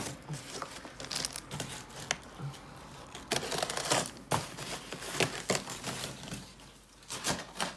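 Cardboard and foam packaging being handled: irregular rustling and crinkling, with scattered clicks and scrapes.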